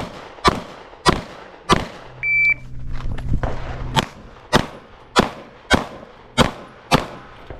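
Pistol shots from a 9mm Walther VP9, about ten of them in two strings about half a second apart, with a pause of about two seconds between the strings. A short electronic beep sounds during the pause.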